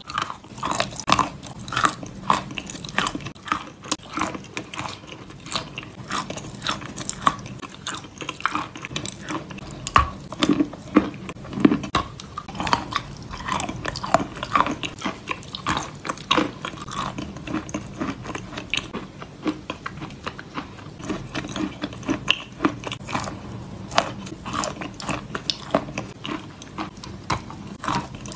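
A person biting and chewing crumbly grey chalk close to the microphone: a continuous run of crisp crunches, a few a second, with chewing between bites.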